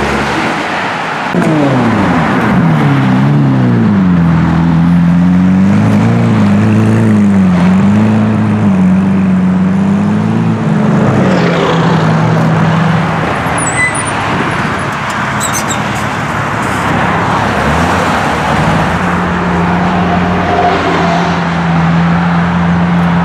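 Sports car engines running as cars roll in at low speed. About a second in, one engine's pitch drops sharply. It then rises and falls for several seconds, and from near the end a steady engine note holds, with road traffic noise throughout.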